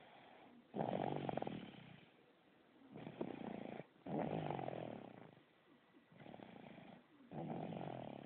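Snoring in a steady breathing rhythm: a loud, fluttering snore about every three seconds, each preceded by a shorter, softer breath.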